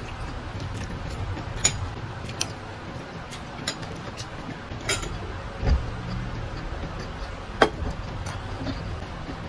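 Eating sounds of a hand-eaten fish meal: lip smacks and chewing clicks, with fingers ticking against the plate and a glass sauce bowl. About half a dozen sharp clicks come at irregular intervals, the loudest near the end, over a steady low hum.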